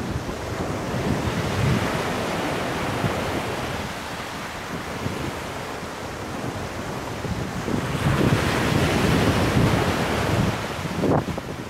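Sea surf breaking and washing onto a pebble beach, with wind buffeting the microphone. The surf grows louder about eight seconds in.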